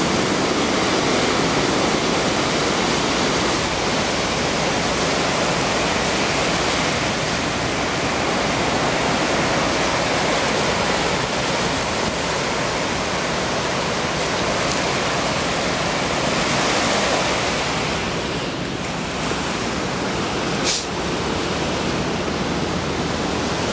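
Steady rushing of ocean surf on the beach mixed with wind noise, swelling for a moment about two-thirds of the way through, with one short click near the end.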